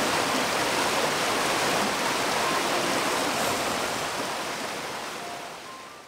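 Mountain river flowing, a steady rush of water, fading away over the last couple of seconds.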